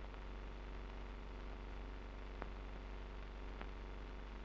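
Steady low hum and faint hiss with two faint clicks, about two and a half and three and a half seconds in. It is the noise floor of an archival film track, with no sound of the work being shown.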